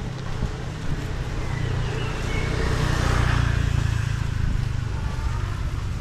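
A road vehicle passing along the street: a low rumble with a broad hiss that swells to a peak about halfway through, then eases off.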